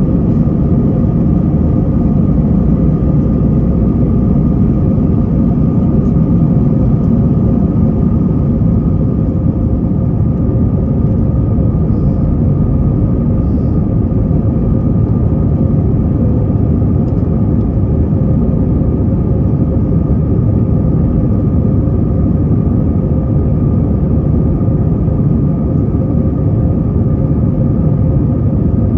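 Airbus A321-200's jet engines at takeoff thrust, heard from inside the cabin through lift-off and the initial climb. They make a loud, steady rumble with a steady engine hum running through it.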